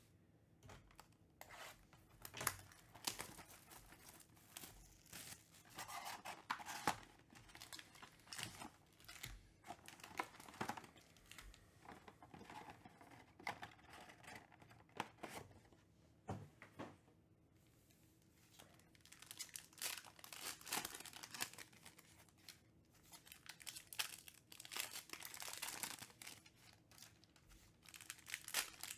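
Foil trading-card packs and a cardboard Panini Mosaic card box being handled and opened: irregular crinkling and tearing of pack wrappers, with sharp clicks and knocks from the cardboard.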